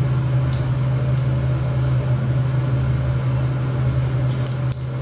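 A machine running steadily: a loud, even hum with a rushing noise over it, and a few light clinks near the end.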